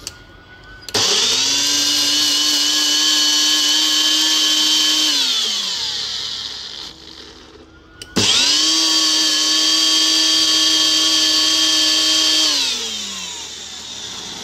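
NutriBullet blender motor blending broccoli and milk into puree in two runs of about four seconds each. Each run starts with a click, holds a steady high whine, then falls in pitch as the motor winds down.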